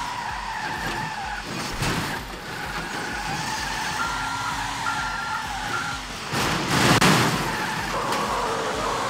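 Vehicle working down a steep track, its engine running under a steady noise, with short repeated high beeps in the middle and a loud rushing burst, the loudest sound, about seven seconds in.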